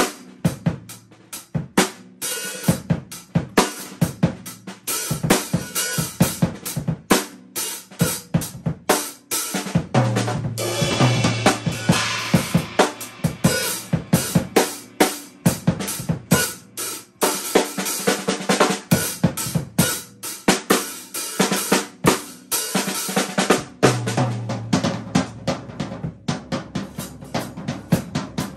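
A drum kit played solo, with a fast, busy beat of snare and bass drum under hi-hat and cymbals. There are heavier stretches of cymbal crashes and low drumming about ten seconds in and again near the end.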